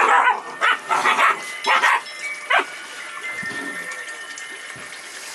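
Puppies barking: about five short, sharp barks in the first two and a half seconds, then quieter.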